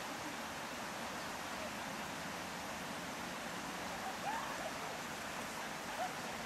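Steady, even rush of flowing river water. Faint voices come through briefly about four seconds in and again near the end.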